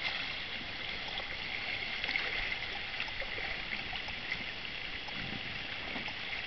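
Swimming-pool water trickling steadily, with small scattered ticks and rubs as a small child crawls across an inflatable vinyl boat.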